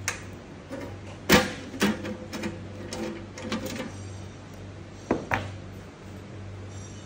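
Metal clinks and knocks of hand disassembly: fittings being unscrewed and set down, and a stainless-steel side cover being lifted off a machine. A handful of sharp knocks, the loudest about a second in and a close pair near the end, over a faint steady hum.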